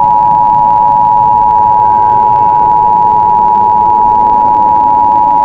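Emergency Alert System attention signal: two steady tones held together, loud and unbroken.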